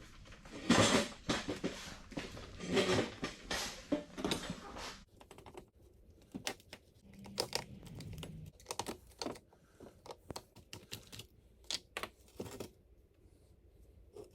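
Ryobi grinder being handled and taken apart: a few seconds of clattering and rustling, then a run of separate sharp clicks and small knocks from its parts and the tools.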